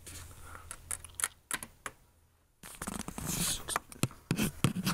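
Light clicks and taps of hands handling a laptop's parts and casing, with a brief scratchy rustle about three and a half seconds in.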